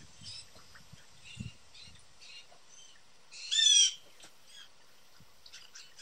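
Young blue jays calling: one loud, harsh call a little over halfway through, with fainter short bird calls before and after it.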